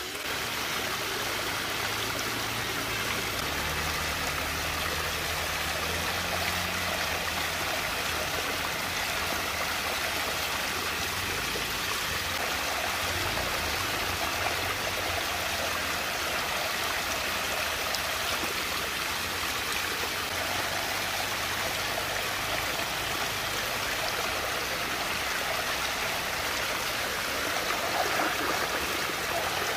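Water rushing and gurgling steadily as it swirls down into a whirlpool vortex, with a little splashing near the end as a hand dips into the swirling water.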